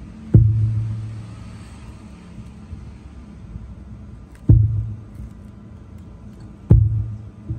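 Knocks on a handheld microphone played through the power mixer and its speakers with an 18-inch subwoofer. There are four deep booms, each dying away over about a second, while the echo and delay effects are being set.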